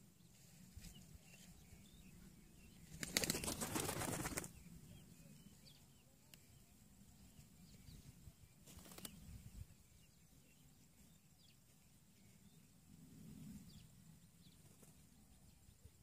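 Pigeon's wings flapping rapidly for about a second and a half, about three seconds in, as a dark feral pigeon flies in and lands among the others.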